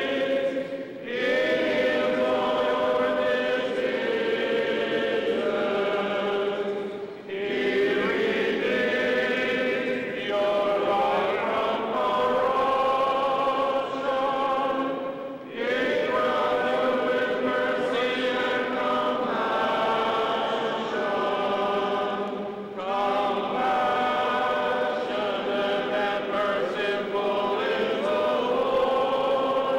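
Choir singing Byzantine-rite liturgical chant in a large cathedral, in long sustained phrases broken by brief pauses every few seconds.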